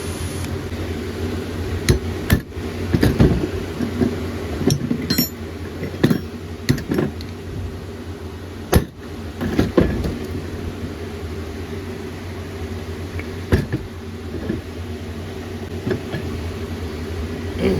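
A hammer striking the valves in a Can-Am DS90 cylinder head, about a dozen irregular sharp metallic knocks, knocking bent valves back down onto their seats to straighten them.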